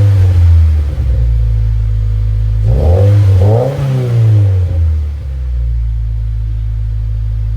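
2017 Subaru WRX's turbocharged flat-four idling through a newly fitted Invidia R400 exhaust, blipped at the start and revved twice in quick succession about three seconds in before settling back to a steady idle. The exhaust note is still a little quiet.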